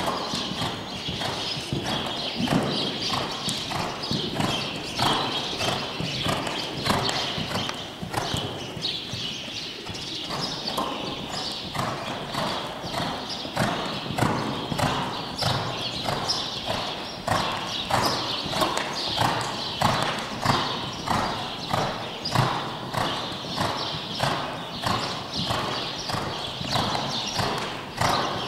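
Hoofbeats of a three-year-old mare trotting and cantering on the sand footing of an indoor riding arena, falling in a steady, even rhythm.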